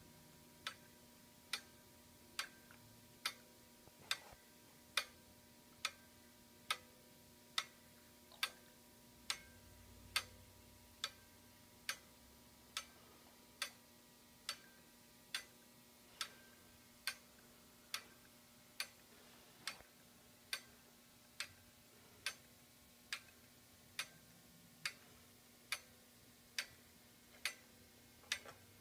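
Wooden-geared clockwork mechanism ticking steadily, one sharp tick a little faster than once a second.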